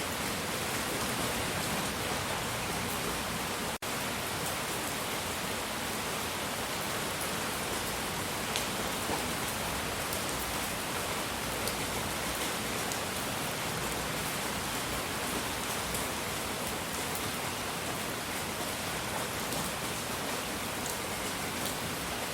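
Steady, even rushing noise like rain, with a few faint high ticks. It drops out for an instant about four seconds in.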